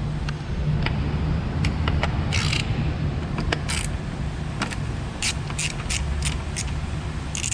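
Socket ratchet with extension being worked to loosen 10 mm bracket bolts: short runs of ratchet clicking, a few widely spaced, then a quicker series of about three a second in the second half, over a steady low hum.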